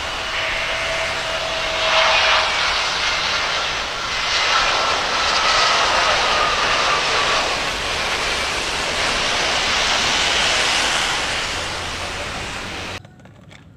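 Twin-engine jet airliner, an Airbus A320-family plane, running its jet engines near the runway: a loud steady rush with a faint whine at first and a slowly falling whine in the middle, cutting off suddenly near the end.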